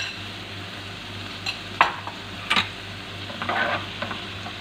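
Carrots, bell pepper and pineapple in a ketchup and pineapple-juice sauce sizzling in a nonstick frying pan as they are stirred, with a few sharp clicks of the utensil against the pan.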